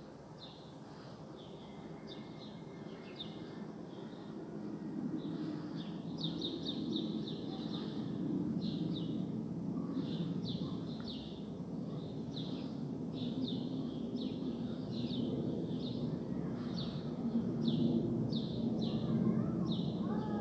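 Small birds chirping over and over in short, high, falling calls, growing busier after about six seconds, over a low steady background noise that gets louder after the first few seconds.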